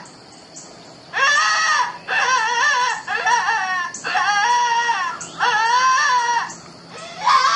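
Predator-call app on a cell phone playing a wailing animal distress call. Five loud, crying bleats of about a second each, wavering in pitch, begin about a second in, and a sixth starts near the end.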